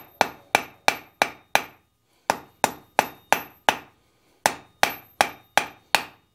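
Hand hammer striking a bundle of quarter-inch round iron bars at welding heat on the anvil, light quick blows gently setting a forge weld. The blows come about three a second in three runs with two short pauses, each with a thin, high ring.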